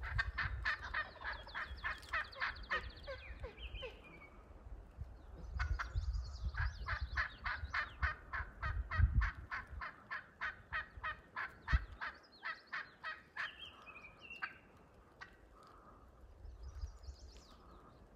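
Wild turkey calling: three long runs of rapid sharp notes, about five a second, with a falling note after the first and last runs.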